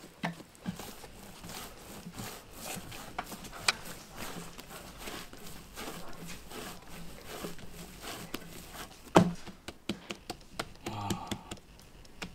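Hands kneading and patting a large mass of bread dough in a glazed clay bowl: irregular soft pats and slaps, with one louder thump about nine seconds in.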